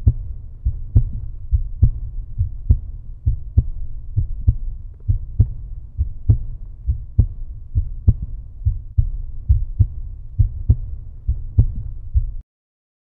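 Outro music reduced to a deep bass thumping beat, about two to three thumps a second, that cuts off suddenly near the end.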